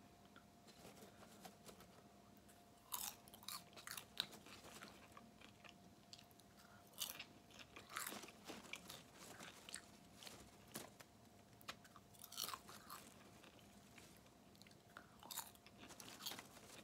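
Faint chewing of Jiffy Pop butter popcorn, which has gone a little chewy from trapped moisture, with short crackles of the foil pan as a hand reaches in for more.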